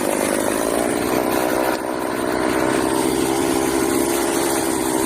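Homelite two-stroke chainsaw engine running steadily after start-up, exhausting through a muffler with its baffle ripped out. Its new carburetor still needs tuning.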